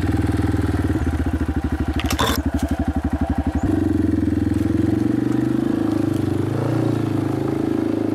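Dirt bike engine ticking over at low revs with a slow, lumpy pulse, with a sharp knock about two seconds in. About three and a half seconds in it revs up and runs steadier at higher revs, its pitch rising and falling with the throttle.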